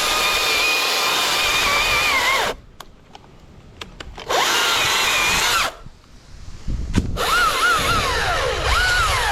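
Battery-powered chainsaw running in bursts: a steady high motor whine for about two and a half seconds, a shorter burst around four seconds in, then near the end a whine whose pitch repeatedly dips and recovers.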